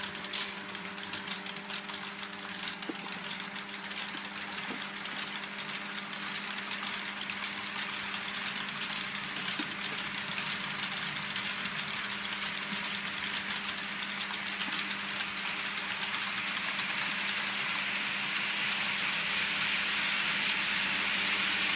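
Model trains running on the layout: a steady electric-motor hum with the rolling hiss of small wheels on the rails, getting louder in the second half as a long freight train comes close. A sharp click about half a second in.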